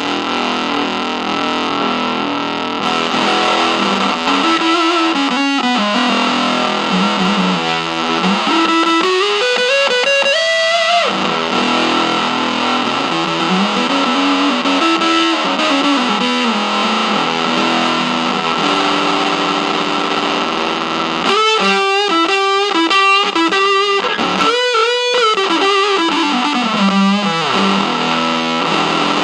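Electric guitar played through a Fuzz Aldrin one-knob fuzz pedal, giving sustained distorted notes with slides and bends up and down the neck. Near the end comes a burst of quick picked notes, then a falling slide.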